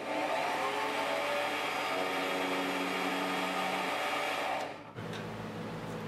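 Small benchtop metal lathe running with a steady motor whine while the tool cuts a small chamfer on the end of a brass bar. The motor is switched off about five seconds in, and the sound drops sharply.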